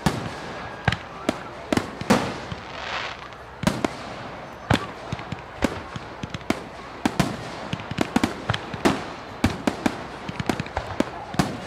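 Fireworks going off: an irregular string of sharp bangs and pops, at times several a second, with a hissing swell about two to three seconds in.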